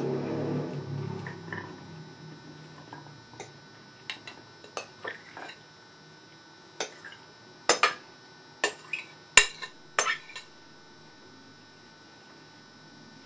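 A metal spoon clinking and scraping against a glass mixing bowl and a china serving platter as salad is scooped out: a dozen or so separate sharp clinks from about three seconds in to about ten seconds in, the loudest a little after nine seconds.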